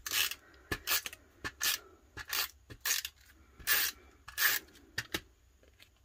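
Hand-held adhesive applicator rubbed across the back of a small paper card in about a dozen short rasping strokes, stopping about five seconds in.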